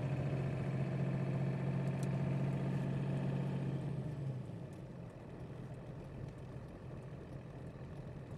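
Pickup truck engine and road noise heard from inside the cab: a steady engine hum that drops and fades about halfway through, leaving a quieter rumble.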